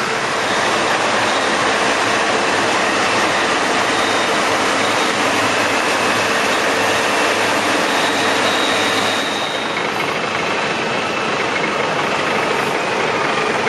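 Combine harvester at work, its engine and threshing gear running in a steady, loud, dense roar of machinery.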